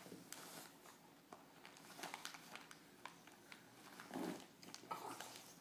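An English bulldog pawing and biting at crinkly gift wrapping paper: faint rustling and crinkling with scattered small clicks, and a short louder burst about four seconds in.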